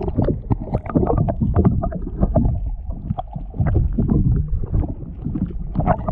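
Water rushing and gurgling over a camera held underwater, heard as a loud, muffled, irregular low rumble.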